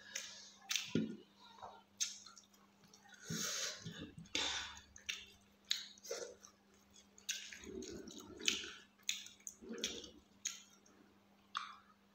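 Close-miked chewing: wet smacks and squishy clicks of a mouthful of rice and fish curry, coming irregularly, over a faint steady low hum.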